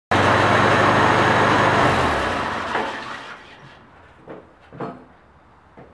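1967 International Cub tractor's four-cylinder engine running, then shut off about two seconds in and dying away. A few light knocks follow near the end.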